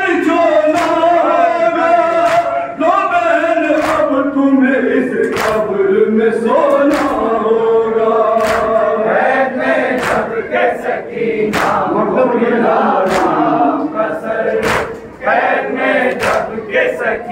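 Men's voices chanting a noha lament in unison, with sharp chest-beating (matam) slaps keeping a slow beat about every second and a half.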